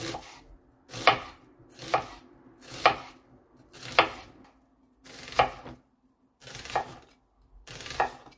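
Chef's knife slicing onion halves into thick pieces on a wooden cutting board: about one stroke a second, each a short crunch through the onion ending in a knock of the blade on the board.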